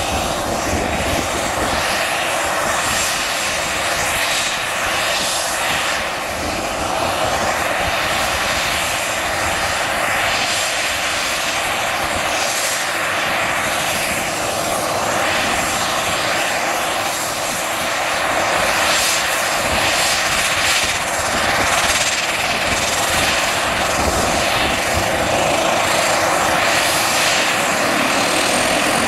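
ATR 42 turboprop airliner's engines running with the propellers turning, a steady loud engine noise that grows a little louder about two-thirds of the way through.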